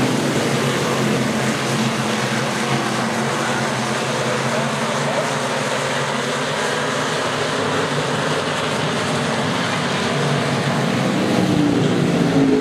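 Hobby stock race cars' engines racing around a dirt oval: several engines blend into a steady din. Near the end one car's engine note rises as it comes closer.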